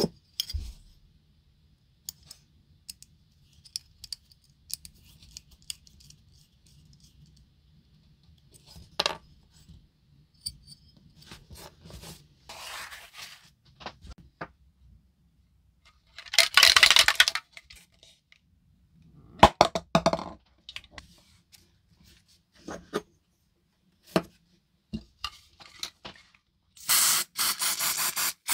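Small diecast metal parts clicking and clinking as they are handled and set down, with a short loud rustle about halfway through. Near the end an aerosol spray can starts spraying in a steady hiss.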